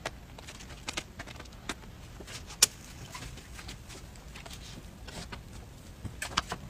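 Handling noise from food preparation: scattered light clicks and taps, with one sharp click about two and a half seconds in and a short run of clicks near the end.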